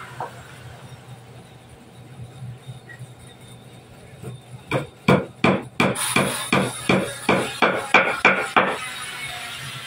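Hammer blows on wood, a quick run of about fifteen sharp strikes at roughly three a second, beginning about five seconds in.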